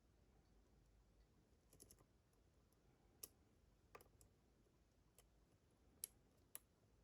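Faint, scattered clicks of a lock pick working the pin stack of a Picksmith 'Silent Hill' challenge lock, about five clicks over several seconds.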